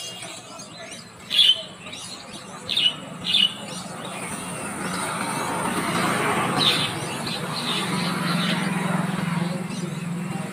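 Mynas giving three loud, short calls in the first few seconds, then fainter calls. Behind them, traffic noise swells from about four seconds in and holds as a low, steady hum.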